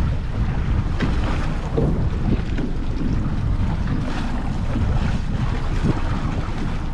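Wind buffeting the microphone on a boat at sea, a steady low rumble with sea noise.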